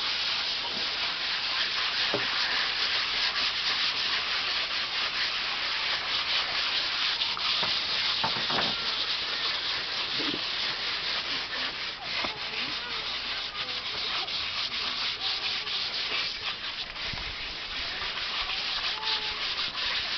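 Sandpaper rubbing on wooden boards: a steady, scratchy rasp that carries on without a break.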